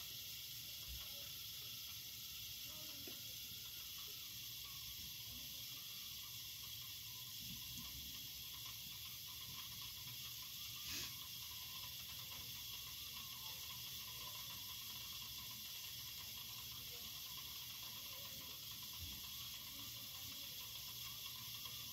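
Faint steady hiss of background noise, with one soft click about eleven seconds in.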